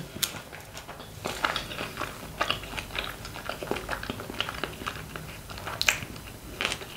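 A person chewing a mouthful of sushi close to the microphone, with many small mouth clicks and smacks and one louder smack near the end.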